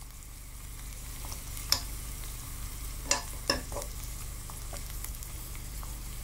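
Chopped garlic and salted fish sizzling gently in oil in a clay pot, stirred with a spoon. The spoon knocks against the pot once about 1.7 s in and three times between about 3 and 4 seconds in.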